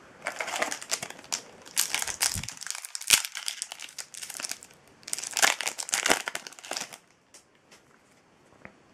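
Foil wrapper of a Yu-Gi-Oh booster pack crinkling and crackling with sharp snaps as it is torn open and handled, in two or three spells that stop about seven seconds in.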